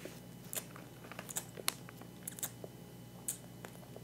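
A person chewing a mouthful of Lemonhead & Friends chewy candies: faint, irregular wet clicks and smacks of the mouth and teeth.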